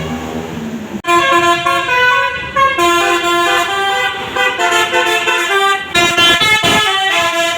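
Bus's Basuri musical multi-tone horn playing a tune: loud held notes that change pitch every fraction of a second. The tune breaks off abruptly about a second in and starts again.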